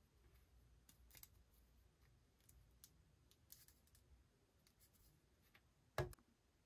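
Faint plastic clicks and ticks as a hollow plastic Hulk toy figure is turned over in the hand, then one sharp knock about six seconds in as it is set down on a tabletop.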